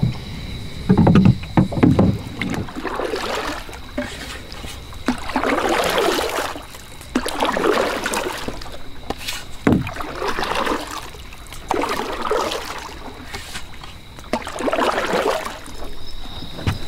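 Canoe paddled across water: a swishing paddle stroke every couple of seconds, with a few knocks against the canoe about a second in.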